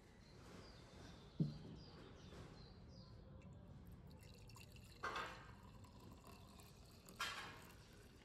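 A single dull knock, the loudest sound, about a second and a half in. Then brewed coffee is poured from a glass carafe into an enamel mug, with two short splashing pours, each fading within about half a second.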